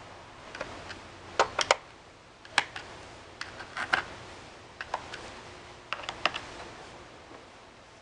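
Small Phillips screwdriver loosening the screws of a laptop's plastic bottom panel: irregular sharp clicks and taps, some in quick pairs.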